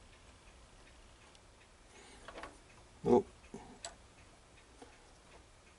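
Small metallic clicks and taps from adjusting the tool height in a mini lathe's tool post with a hex key. One short, much louder sound comes just after three seconds in.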